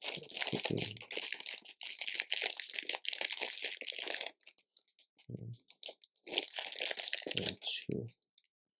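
Hands rummaging through loose LEGO bricks, the small plastic pieces clattering and rattling against each other: a long stretch at first, then a pause, and a shorter one about six seconds in.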